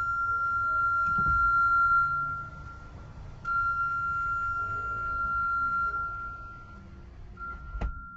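A steady electronic warning tone, held for about three seconds at a time with two short breaks, over a low machinery rumble. A single sharp knock comes near the end.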